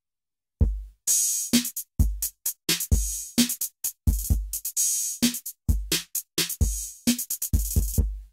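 A drum-machine beat on its own, played from a Roland SP-404 sampler, starting about half a second in: deep kicks with long decays, a short pitched drum hit, and crisp snare and hi-hat hits in a repeating pattern.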